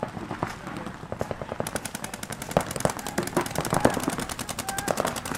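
Paintball markers firing in rapid streams, starting about a second and a half in and running at roughly a dozen shots a second, with louder single cracks mixed in.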